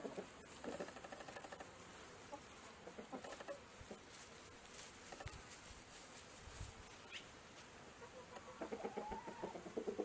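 Chickens clucking softly, with a louder run of rapid clucks near the end.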